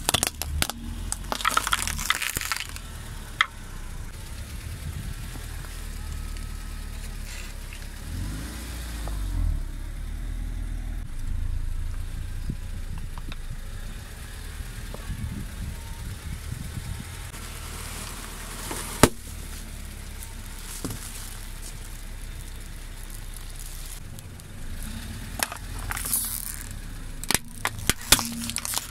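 A car tyre rolling slowly over small brittle objects and crushing them, with clusters of crackling and snapping over the car's steady low engine running. There is a single sharp snap partway through and more crackling near the end.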